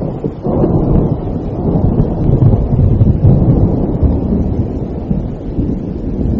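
Rolling thunder rumbling over steady rain, swelling about half a second in and easing off near the end.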